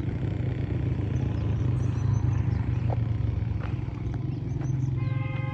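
A low, steady pulsing rumble like a small engine running. A short pitched tone sounds briefly near the end.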